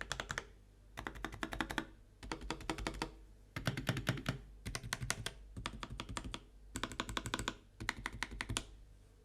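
Mechanical keyboard being typed on in quick runs of keystrokes, a new run about every second with short pauses between, over a faint steady low hum.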